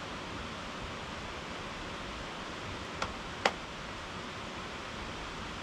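Two handclaps about half a second apart, the second louder: the two claps of a Shinto shrine prayer. A steady hiss of background noise runs under them.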